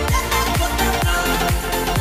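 Background music with a steady kick-drum beat, about two beats a second.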